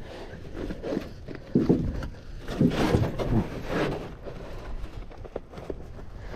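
Gear being rummaged through on the floor of an aluminum jon boat, with irregular rustling and a few sharp knocks, and a few muffled words partway through.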